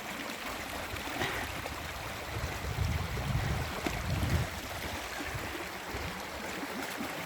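Steady rush of rain-swollen running water, with a low rumble for a couple of seconds in the middle.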